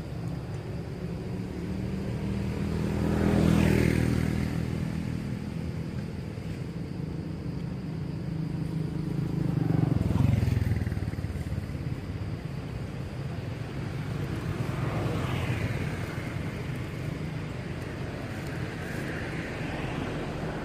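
Motor vehicles passing on a nearby road: a low engine hum that swells and fades as each goes by, loudest about three and a half seconds in and again about ten seconds in, with two fainter passes later.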